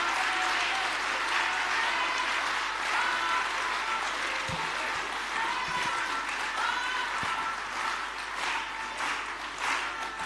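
A crowd applauding, with a few voices calling out over the clapping; near the end the applause thins into separate claps.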